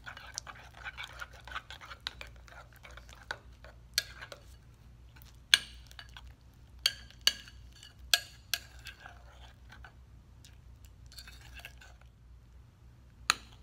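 A metal tablespoon stirring sticky slime of clear glue and liquid starch in a bowl. It makes a soft scraping, broken about seven times by sharp clinks of the spoon against the bowl. Mixing more starch activator into the still-sticky slime.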